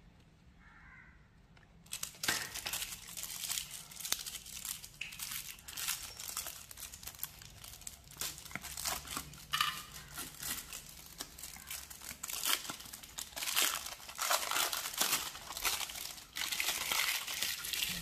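Aluminium foil wrapper of a Milkybar white chocolate bar being crinkled and peeled open by hand. A dense, irregular run of crackling rustles starts about two seconds in.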